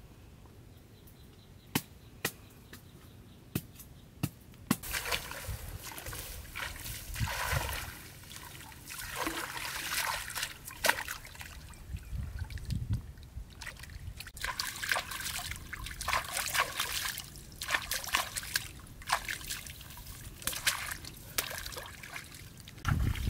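Water splashing, sloshing and trickling in irregular bursts as a large pangasius catfish is dipped and rinsed by hand in a shallow muddy pool. The first few seconds are quieter, with a few sharp clicks.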